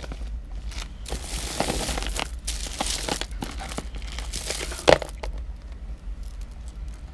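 Rustling and many small clicks of old beaded jewelry being handled and sorted, with one sharp click about five seconds in.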